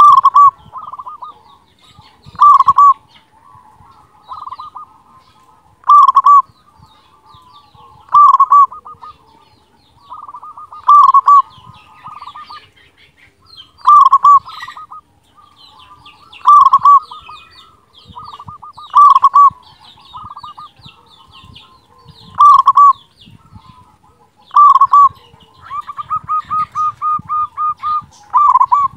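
Local zebra dove (perkutut) singing in a big voice: a short loud cooing phrase about every two and a half seconds, and near the end a quick run of about ten evenly spaced notes. Other birds chirp faintly in the background.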